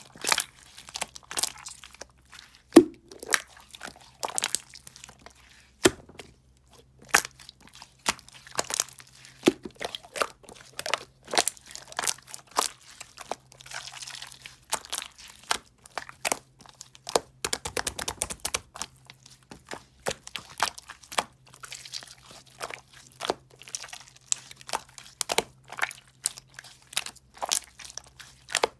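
Soothing gel being handled, giving an irregular run of crunching and crackling with many sharp crackles, thickest about two-thirds of the way through.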